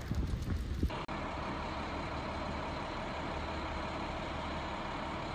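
Gusty rumble of wind on the microphone for the first second. Then a sudden change to a steady, even hum of fire engines idling.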